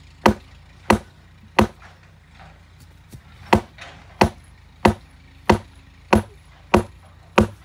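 Steel rammer bar striking the foot of a wooden fence strut, knocking it home into its recess: ten sharp blows, about one every two-thirds of a second, with a pause of about two seconds after the third.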